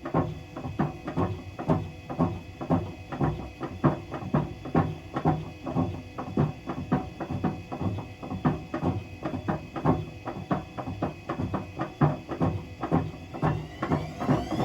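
Hotpoint BHWMXL145 washing machine drum knocking in a steady rhythm, about three knocks a second, as it turns with a snapped drum spider. Near the end the motor's whine rises sharply as the drum begins to spin up.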